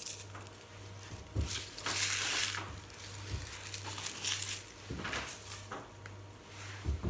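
Garlic being peeled by hand over a plastic cutting board: the papery skins rustle and crackle in short bursts, with a few soft knocks on the board.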